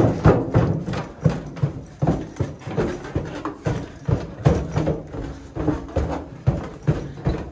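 Footsteps going down steep wooden steps in a narrow stone tunnel, at about two steps a second.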